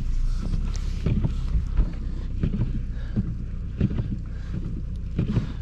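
Car engine running with a steady low hum, with scattered knocks and thumps over it.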